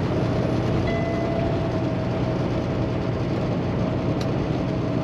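Steady drone of a Kenworth T680 semi cruising at highway speed, heard from inside the cab: its PACCAR MX13 inline-six diesel engine running along with road and wind noise.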